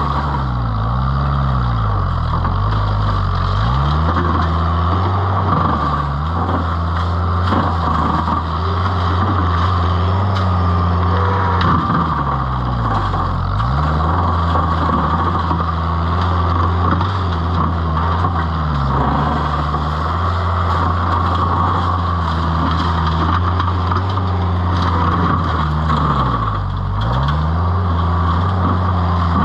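Vermeer S925TX mini skid steer engine running steadily at high throttle, its pitch dipping and recovering briefly a few times.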